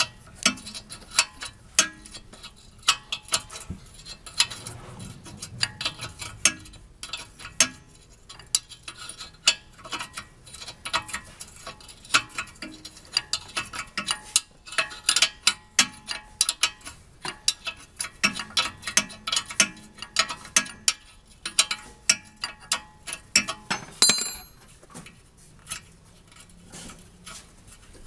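Ratchet wrench clicking in quick runs of strokes, with metal tools clinking, while front suspension bolts are being undone. Near the end there is a short, bright metallic ring.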